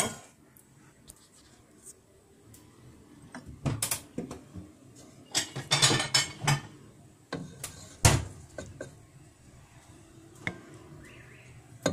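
Kitchen utensils knocking and scraping against a cooking pot in scattered clatters, with quiet stretches between; the sharpest single knock comes about eight seconds in.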